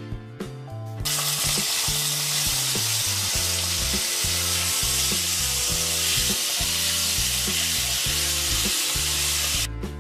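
Hot oil sizzling loudly in a nonstick frying pan as red chilli flakes and a paste are sautéed and stirred with a spatula. The sizzle starts about a second in and stops shortly before the end.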